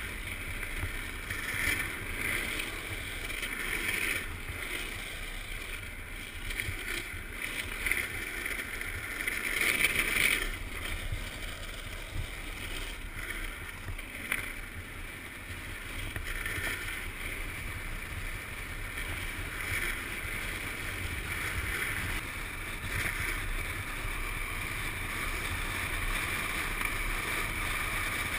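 Wind buffeting a moving camera's microphone over the rolling rumble of freebord wheels on asphalt during a fast downhill run, swelling louder now and then, most of all about ten seconds in.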